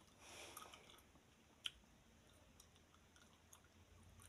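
Near silence: quiet room tone with a few faint small clicks, the clearest about one and a half seconds in.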